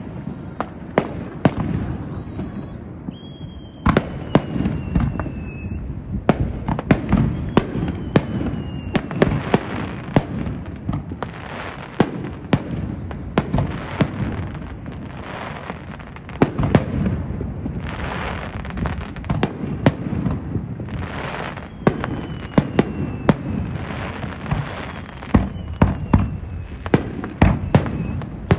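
Aerial fireworks display: a steady barrage of sharp bangs, often several a second, over a continuous low rumble. A few long whistles slide slowly down in pitch, one early on and several near the end.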